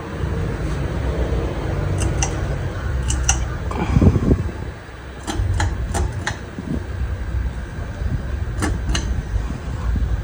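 Harbor Breeze Cedar Shoals 44-inch ceiling fan running, under a steady low rumble, with scattered sharp clicks.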